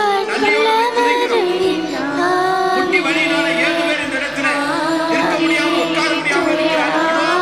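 A voice singing a slow, ornamented melody with sliding pitches over a steady held drone tone.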